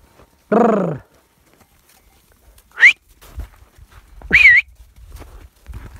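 A sheep bleats once, then the shepherd gives two loud herding whistles: a short rising whistle and a longer, wavering one.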